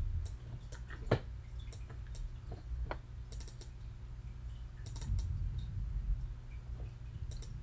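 Scattered computer mouse clicks, a few coming in quick pairs like double-clicks, over a faint steady low hum.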